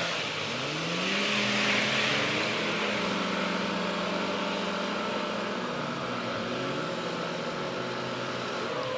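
Heavy logging truck's engine revving up about half a second in, holding steady under power, then easing off and rising and falling again from about halfway through.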